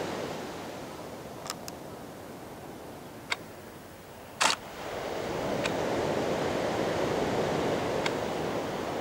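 Rushing noise of wind and surf that eases off and then swells again from about five seconds in, with a few sharp clicks, the loudest about halfway through.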